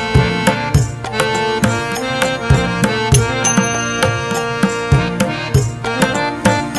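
Background music with sustained melodic tones over a quick, regular drum beat.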